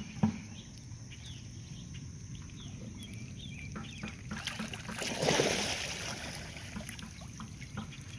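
Water sloshing and lapping at the dock, with a louder rushing splash a little past the middle. Faint high peeps from mallard ducklings come in the first few seconds.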